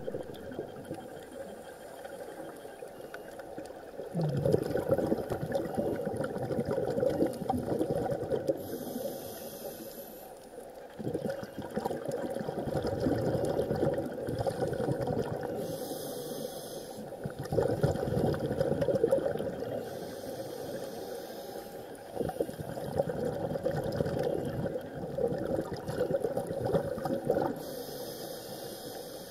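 Underwater water noise heard through a camera housing, a scuba diver's breathing on a regulator: a short hiss every several seconds, then a longer bubbling surge.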